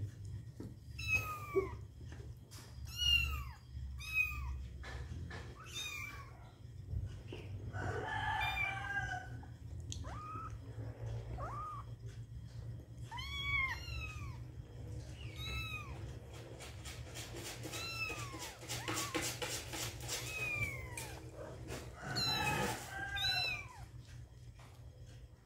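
Four-week-old Siamese kittens mewing over and over, each a short high-pitched cry that rises and falls, more than a dozen in all. A burst of rapid clicking comes a little past the middle, over a low steady hum.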